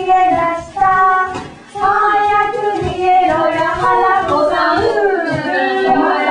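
Women and young children singing a Japanese warabeuta game song together without accompaniment, in held, stepwise notes, breaking off briefly about a second and a half in. Toward the end the voices turn to looser, talking-like sounds.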